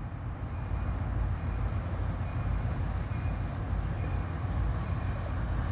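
Kansas City Southern freight train's lead diesel locomotive rolling past slowly, a steady low rumble.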